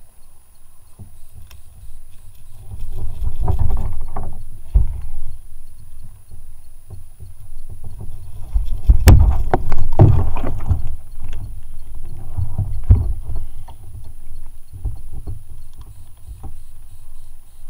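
Irregular low bumps and knocks through a plastic fishing kayak's hull as the angler shifts about and handles his landing net, with one sharp knock about nine seconds in, the loudest moment.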